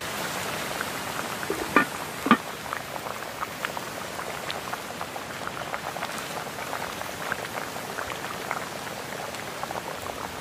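A pot of coconut-milk stew bubbling at a steady boil, full of small pops and ticks. Two sharp knocks come about two seconds in.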